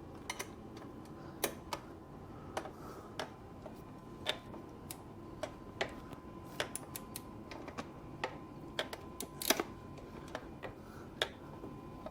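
Irregular light clicks and ticks of hand tools working the plug into the O2 sensor bung on the exhaust header, about two a second, with one louder click near the end.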